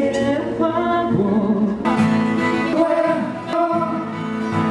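Music with a singing voice.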